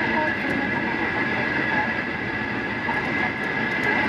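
Steady road and engine noise inside a car's cabin at expressway speed, an even rumble with a steady high hum.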